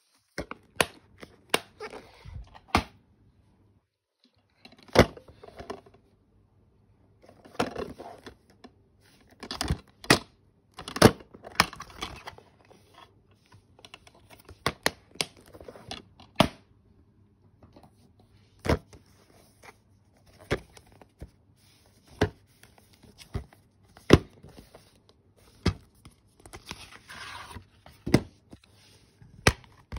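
Plastic DVD cases being handled, opened and shut: irregular sharp clicks and snaps of the plastic with brief rustling between them.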